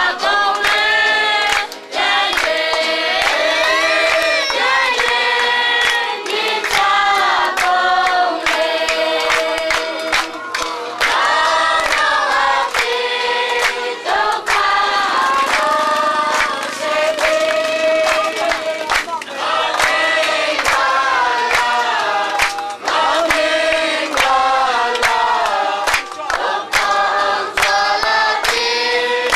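Church congregation of women, men and children singing a hymn together, with hands clapping along.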